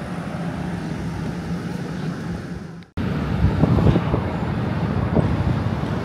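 Motor coach's diesel engine idling steadily, a low even hum. It cuts off abruptly about three seconds in, and outdoor noise with a few short knocks follows.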